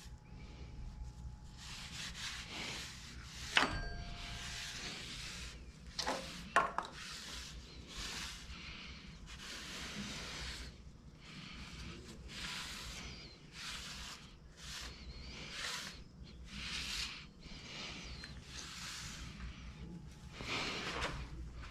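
Repeated rubbing or wiping strokes, roughly one or two a second, with a couple of sharp clicks about a third of the way in.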